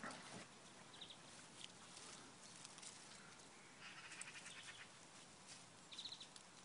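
Faint high-pitched animal chirps over a low background hiss: a short chirp about a second in, a quick pulsed trill about four seconds in, and another short chirp near the end.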